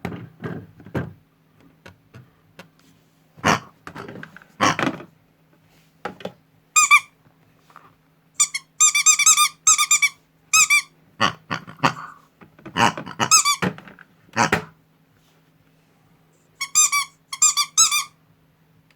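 Runs of short, high squeaks with a wavering pitch, mixed with loud knocks and rattles, over the low steady hum of a small motor, from modified toy washing machines with toys tumbling inside.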